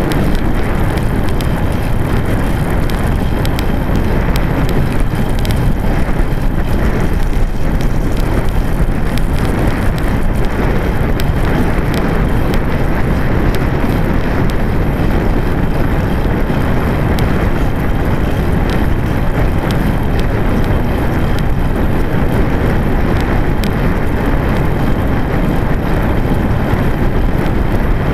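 Steady wind noise on a microphone riding along on a moving road bike, mixed with the rolling of the bike's tyres on asphalt, with a few faint scattered clicks.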